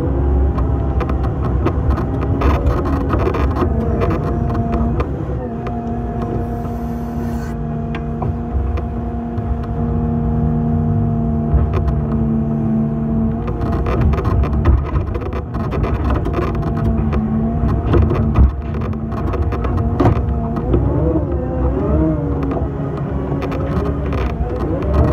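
Hydraulic excavator running, its engine and hydraulics giving a steady whine as the boom and bucket swing. The pitch wavers in the last few seconds as the load changes, with scattered clanks throughout.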